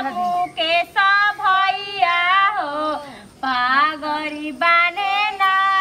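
A woman's voice singing a Bhojpuri folk song in long held notes that slide in pitch, phrase after phrase, with short breaks between.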